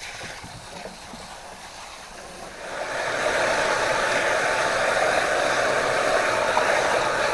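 Water running steadily into a sink, coming on about three seconds in.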